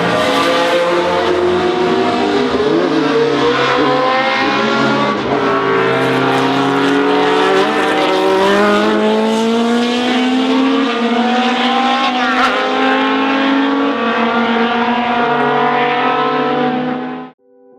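Racing engines of 1970s Lola sports-prototype race cars at full throttle, more than one engine heard at once, their pitch climbing as they accelerate. The sound cuts off abruptly near the end.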